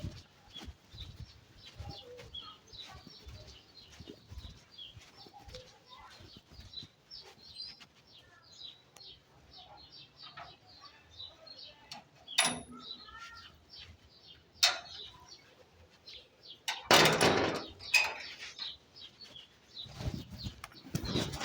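Small birds chirping, with many short high chirps throughout. A loud noisy burst lasting about a second comes about 17 seconds in, and a few sharper sounds come a little earlier.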